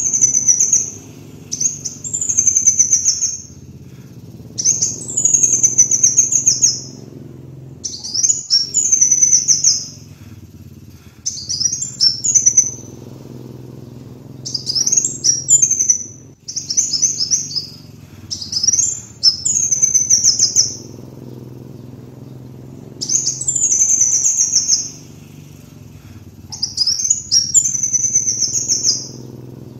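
Kolibri wulung sunbird singing: high, fast, twittering phrases of a second or two each, repeated about a dozen times with short pauses between, over a faint steady low hum.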